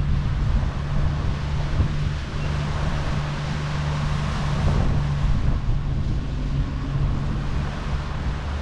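Outboard motor of a small fishing boat running steadily under way, a constant low hum, with wind buffeting the microphone and water rushing past the hull.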